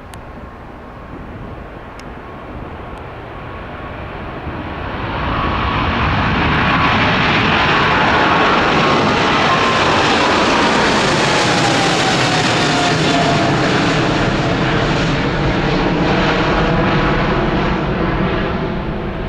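Boeing 777-200F freighter's twin GE90 turbofans at take-off power, the roar building over a few seconds and then holding loud and steady. A whine from the engines falls in pitch as the aircraft goes past.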